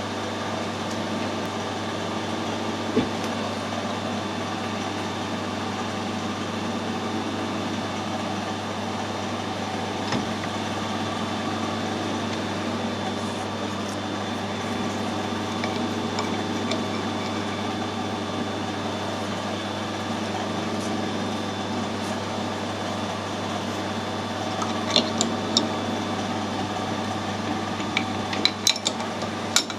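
Metal lathe running at a steady speed, a constant machine hum. A few sharp metallic clicks come near the end, as of tools or metal parts being handled.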